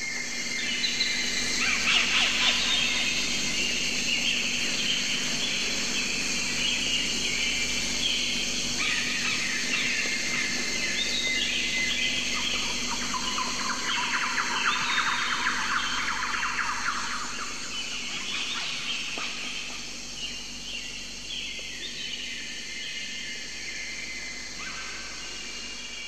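Many birds chirping and singing together in a dense, continuous chorus of short overlapping calls and trills.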